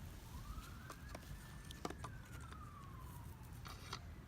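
Faint police siren wailing: one slow rise and fall in pitch, with a few light clicks on top.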